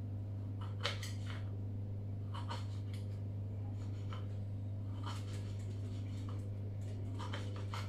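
Knife slicing a dark, long-salted radish on a cutting board: irregular short cutting strokes, the loudest about a second in, over a steady low hum.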